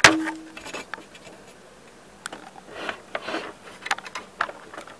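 Handling noise inside an open VHS player's cassette bay: light scraping and rubbing with scattered small clicks as its plastic parts are poked with a wooden stick and fingers. A sharper click comes right at the start, and two short scrapes come about three seconds in.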